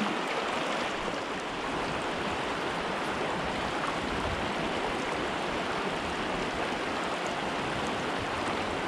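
Shallow mountain stream running over rocks and cobbles: a steady, even rush of water.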